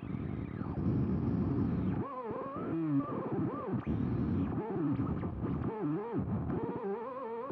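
Plasma ball's electrical buzz, picked up by a microphone and run through guitar effects software. It begins as a rough, crackling hum, then about two seconds in turns to warbling tones that swoop up and down in pitch.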